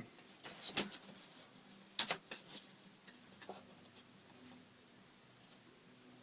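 Scattered short clicks and taps, the loudest a sharp snap about two seconds in: a template sheet scored with a knife and snapped along the score, then handled.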